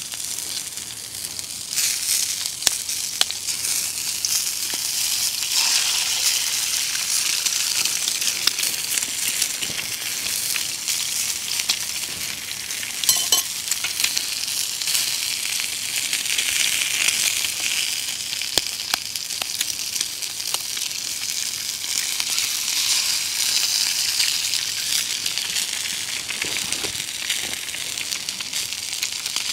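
Sausages and eggs sizzling in hot oil in a metal pan lid over a gas camping stove, with a few light taps and scrapes of a carved wooden spatula.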